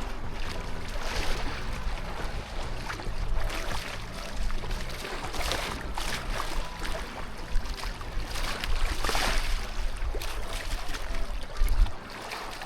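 Water sloshing and washing in slow swells, over a low rumble of wind on the microphone that drops away near the end.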